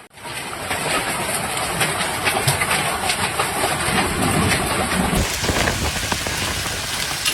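Rain pouring steadily, a dense hiss with many sharp drop impacts close by; the sound changes abruptly about five seconds in, as another rain recording takes over.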